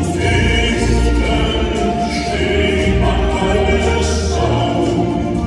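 Live band playing a medley of German Fahrtenlieder (traditional hiking and folk songs): a male lead voice with two women singing backing harmonies, over grand piano, acoustic guitar and keyboard.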